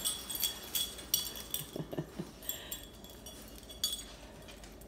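Light metallic clinking and jingling while a small dog shakes and tugs a plush toy: a string of quick small clinks that thins out, with one sharper clink near the end.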